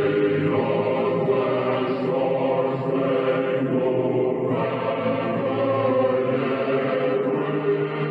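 Music of slow, held choir-like chords, swelling and easing every couple of seconds, with no beat.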